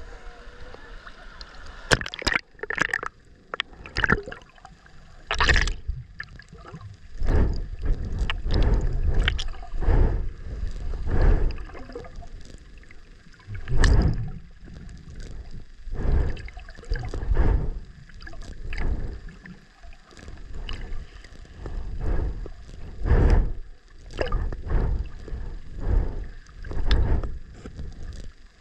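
Ocean water sloshing and gurgling around a swimmer's submerged camera, surging in pulses about every one and a half to two seconds, with a few sharp splashes in the first several seconds.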